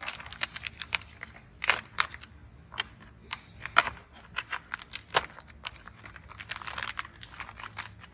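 Stiff clear plastic packaging crinkling and crackling as it is cut open with scissors: a run of irregular sharp snips and crackles, a few of them louder.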